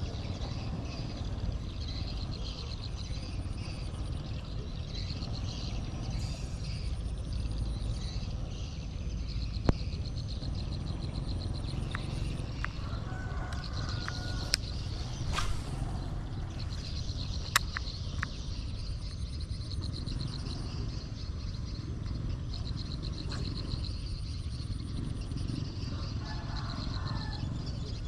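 Rice-field ambience: insects trilling in long, rapidly pulsed high trains, with a few short bird chirps over a steady low rumble. Three sharp clicks come in the middle.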